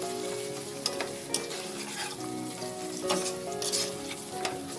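Onions, green chillies, whole spices, coriander and mint frying and sizzling in oil in a pan while being stirred, with a spatula scraping and clicking against the pan several times.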